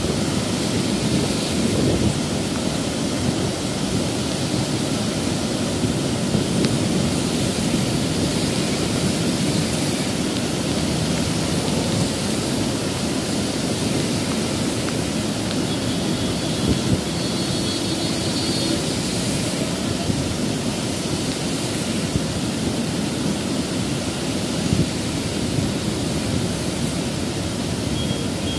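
Floodwater rushing over a reservoir spillway crest: a loud, steady rush of water that does not let up.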